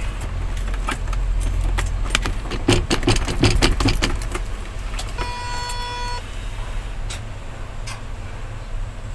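Keys jangling and clicking at a truck's ignition, then a single steady electronic beep lasting about a second as the ignition is switched on, over a low hum.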